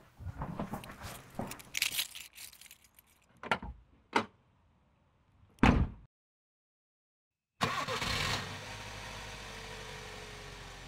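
Small clicks and rustling of things being handled, then three sharp knocks, then a second and a half of dead silence. A vehicle engine then comes in suddenly and runs steadily.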